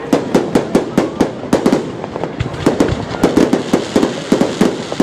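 Aerial fireworks bursting in quick runs of sharp bangs and crackles, several a second.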